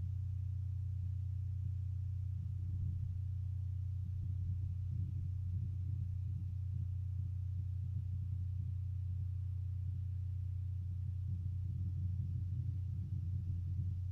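A steady low electrical hum, with faint scattered handling sounds over it.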